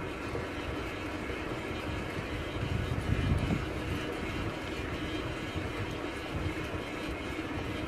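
Wind rushing over the microphone and tyre noise on asphalt as a beach cruiser bicycle rolls along the road, with a stronger gust about three seconds in.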